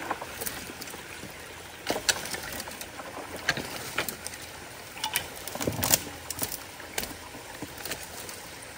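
Creek water running steadily, broken by a string of irregular knocks and splashes as sticks and debris are pulled out of a clogged culvert.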